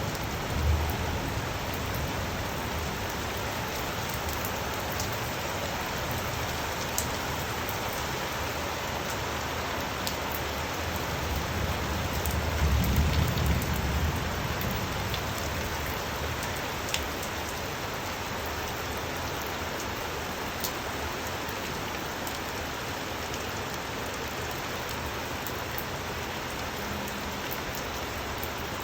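Steady rain falling and drumming on surfaces, with a few faint drip ticks. A low rumble swells up and fades about halfway through.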